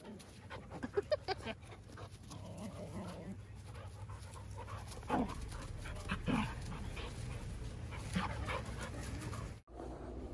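Poodles playing, giving a few short pitched dog vocalizations spread through the clip.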